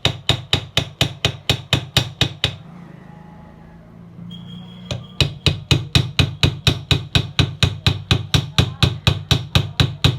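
A piece of file struck repeatedly against a ceiling fan's worn shaft, about four sharp knocks a second, nicking marks all round the rod so it sits tightly in the bearing. The knocks stop for about two and a half seconds midway, then resume.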